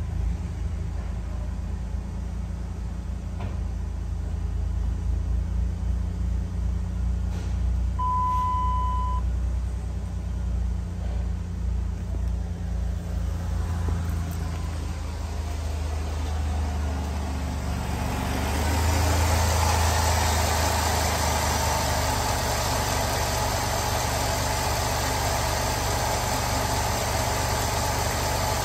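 2006 Dodge Caravan's 3.3-litre V6 idling steadily. It is muffled at first, as heard from inside the cabin, then louder and fuller from about two-thirds of the way through, as heard over the open engine bay. A single short beep about a second long comes roughly eight seconds in.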